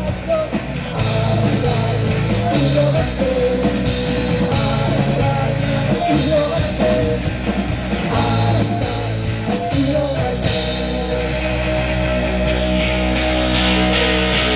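Rock band playing: electric guitar, bass and drums, with wavering sung or lead lines. About ten and a half seconds in, the sound settles into steadier held notes.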